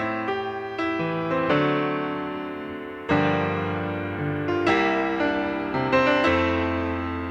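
Background piano music: gentle chords struck every half second or so, each note fading away.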